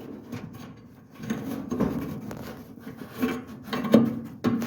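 Rubbing and scraping as a dryer drive belt is worked by hand under the belt support, with a few sharp knocks of the parts about four seconds in and near the end.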